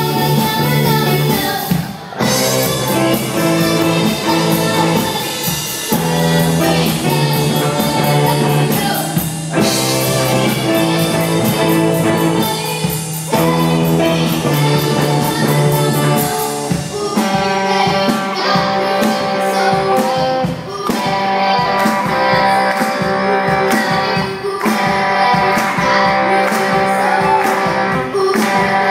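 Live pop-rock band playing, with a female lead singer, guitar, bass and drum kit. About two-thirds of the way through, the cymbals drop away and held higher notes take over as the arrangement changes.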